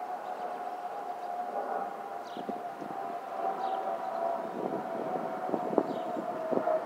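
The FOPP whistle of an Airbus A320-family airliner passing overhead: a steady whistling tone that drifts slightly lower in pitch, over the rumble of the jet engines. The whistle is airflow over the fuel over-pressure protector vents under the wings.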